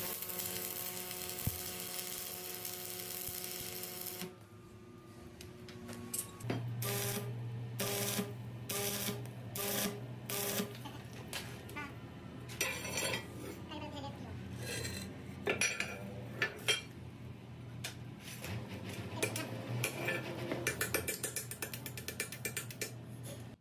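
Electric arc welding on a truck's rear axle housing, where the spindle joins it: a steady hiss for about four seconds, then a series of short welding bursts about a second apart, and more irregular short bursts toward the end.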